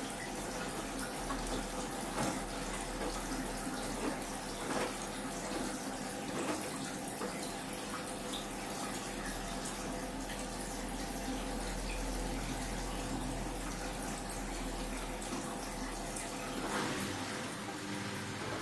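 Hoover washing machine's drain pump running, pumping the wash water out at the end of the wash phase of a 14-minute rapid cycle: a steady hum over flowing water.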